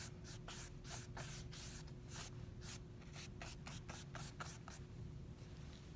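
Wide paintbrush sweeping back and forth over wet watercolor paper: a quick run of soft, faint brushing strokes.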